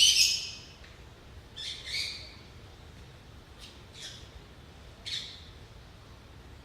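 Bird calls: a series of short high calls, the loudest right at the start, then a few more spaced a second or two apart.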